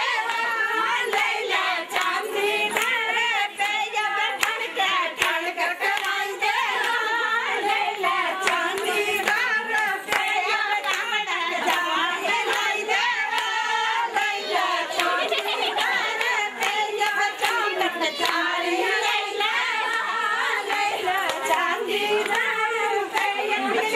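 A group of women singing a Pahari jhamakda wedding folk song together, with hand-clapping throughout.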